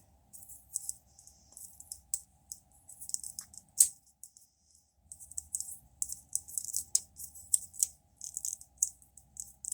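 Plastic Transformers action figure being handled and its parts moved into place during transformation: small, irregular plastic clicks and rattles, with one sharper click about four seconds in.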